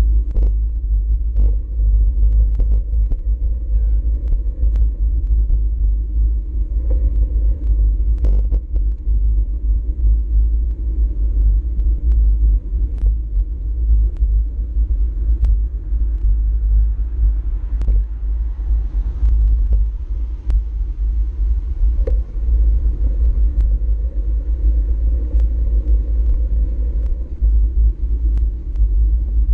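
Wind rumbling on an action camera's microphone while cycling, a constant low, buffeting rumble, with scattered sharp clicks throughout.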